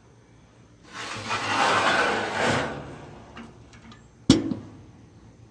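Steel parts of a barbecue smoker being handled: a sliding scrape that swells and fades over about two seconds, a few light ticks, then a single sharp metal clank.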